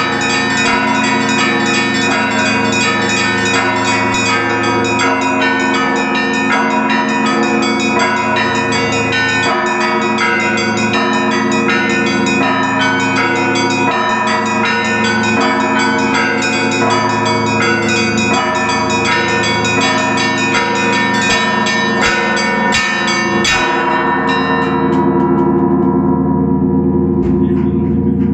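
Russian Orthodox bell ringing (perezvon) from a cathedral bell tower: many bells, high and low, struck in a quick, dense rhythm. About 23 seconds in, the striking stops and the bells ring on, the higher ones fading while the deep bells hum.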